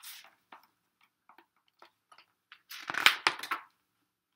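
Paper pages of a picture book being handled and turned: a few small rustles and taps, then a louder page-turning rustle about three seconds in.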